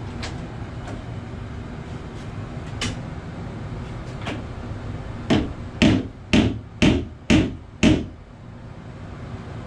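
Six sharp hammer blows, about half a second apart, on a door's spring hinge, after a few faint clicks.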